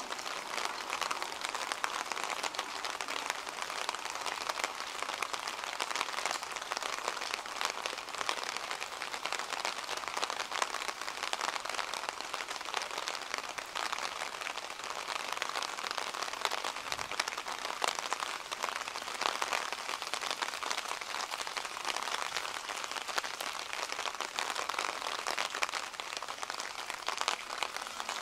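Steady rain falling, a dense crackle of many small drops striking surfaces, even throughout.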